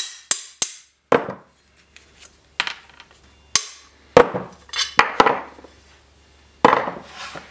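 Sharp metal knocks and clinks, about ten at irregular intervals, each briefly ringing: steel tools striking as a hammer taps a bushing removal tool to drive the worn seat stay bushing out of its pivot, and tools are knocked together and set down on the workbench.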